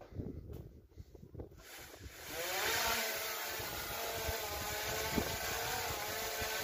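Small quadcopter drone's motors spinning up about two seconds in, rising in pitch to a steady buzz of the propellers as it lifts off and hovers.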